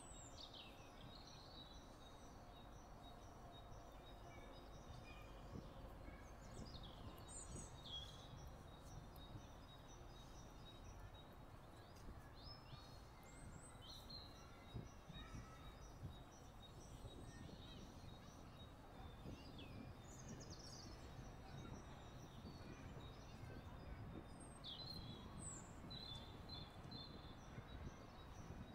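Faint open-air ambience: a low, steady rumble of wind with birds giving short, descending chirps every few seconds.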